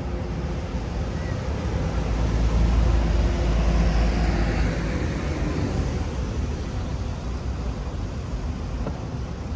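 City street traffic: a motor vehicle passes close by, its low rumble swelling about two seconds in and fading after about five seconds, over a steady background of traffic noise.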